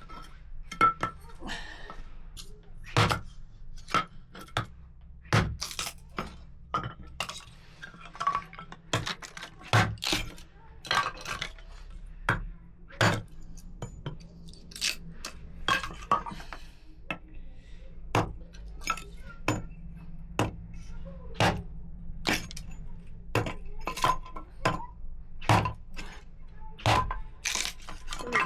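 Irregular clinks and knocks of pots, dishes and utensils being handled, a dozen or more sharp strikes spread unevenly, some ringing briefly.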